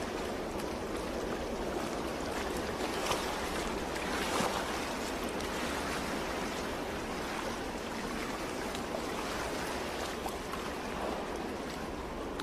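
Sea surf washing onto a sandy shore, a steady rush of waves with a few slight swells.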